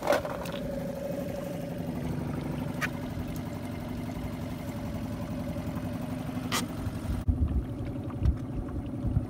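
Small Suzuki outboard motor running steadily as it pushes a small boat across a lake, a low even hum. Two brief clicks are heard, and a few low thumps come near the end.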